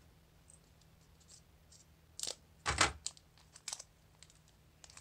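Foil Pokémon booster pack being picked up and handled: faint crinkling and a few sharp taps and clicks, the loudest a single knock a little under three seconds in.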